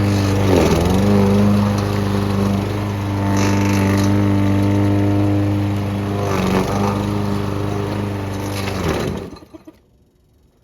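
Engine-driven garden shredder running hard, its pitch dipping briefly twice as it bogs under the load of potted-plant soil and roots going through, then shutting off about nine seconds in.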